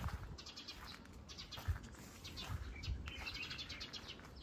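Small birds chirping in quick high twittering runs, faint, with a few soft footfalls on a dirt path.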